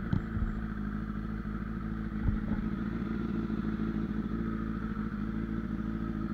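Honda CBR1000RR Fireblade's inline-four engine idling steadily, with a brief low thump about two seconds in.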